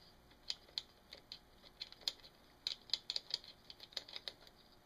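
Faint, irregular light metallic clicks and ticks as bolts are worked loose by hand on the cylinder of a 1979 Honda ATC110 engine, coming in small clusters.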